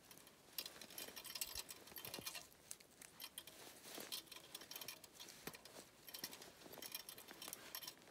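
Faint handling noises: rustling of a jacket sleeve and gloved hands, with small irregular clicks and scrapes, while working at a trap set on a tree trunk.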